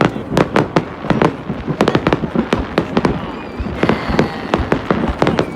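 Fireworks going off in rapid succession: a dense string of sharp bangs and crackles, several a second.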